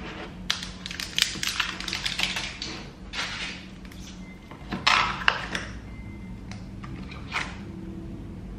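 Hands working a tub of white clay slime: a quick run of small clicks and crackles for about the first three seconds, then a few short rushes of noise spaced a couple of seconds apart.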